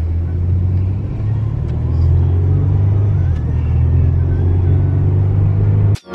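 Car cabin noise while driving: a steady low rumble of engine and road. It cuts off abruptly at the very end.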